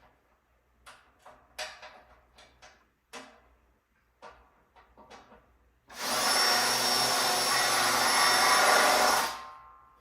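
A few light knocks and clicks from bed-frame parts being handled, then a small electric motor runs loudly and steadily with a high whine for about three and a half seconds before winding down.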